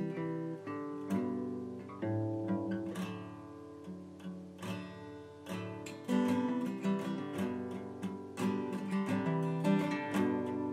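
Background music played on acoustic guitar, plucked and strummed notes in a steady run.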